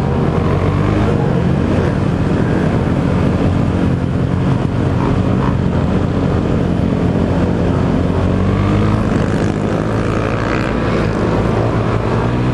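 Several motorcycle engines running loudly at close range, with revs rising and falling.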